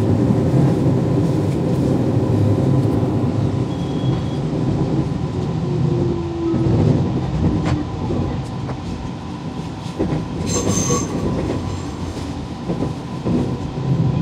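Inside a JR Nara Line electric train running along the track: steady rumble of wheels on rail, with a brief high squeal about three quarters of the way through.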